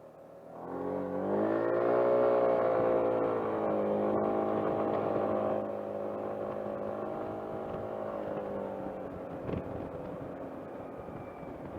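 Motor scooter engine pulling away and speeding up, its pitch rising over the first couple of seconds, then running at a steady cruising speed and easing off a little about halfway through, heard from a microphone inside the rider's helmet.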